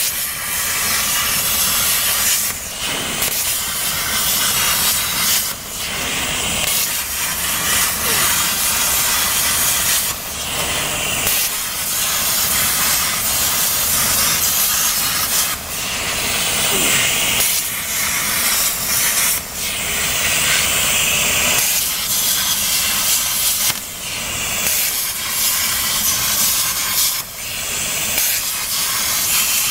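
CNC plasma cutter's torch arc cutting thin galvanized sheet with water cooling: a loud, steady hiss that drops out briefly every few seconds.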